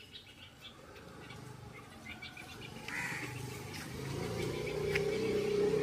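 Birds calling in short scattered calls, with a brief louder call about three seconds in, over a steady low hum that grows louder in the second half.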